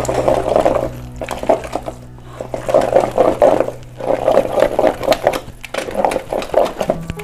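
Wooden churner worked in a clay pot, mashing cooked gongura leaves with onions, chillies and garlic into a wet paste. It makes a rhythmic, pulsing sound of wet squelching and scraping against the pot, easing off briefly about two seconds in.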